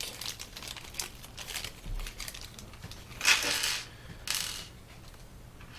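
A small plastic bag of hard-disk screws being handled: light metal clicks of the screws and plastic crinkling, with a louder rustle a little past halfway and a shorter one soon after.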